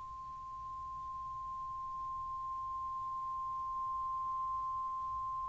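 Steady 1 kHz sine-wave test tone from a signal generator, played through the repaired Rotel A14MKII amplifier to its speaker. It grows gradually louder over the first few seconds as the amplifier's digital volume control is turned up.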